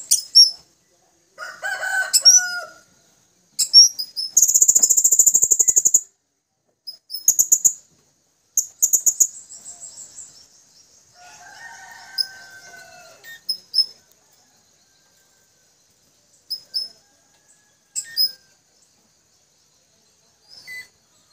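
Blue-crowned hanging parrots (serindit) calling to each other with thin, high-pitched chirps and squeaks at irregular intervals. There is a fast, buzzy trill for about a second and a half a little after four seconds in.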